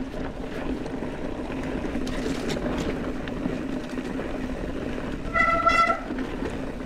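Mountain bike rolling fast over a dirt trail, with a steady low tyre hum and rumble. A little over five seconds in comes a short, steady high squeal lasting under a second.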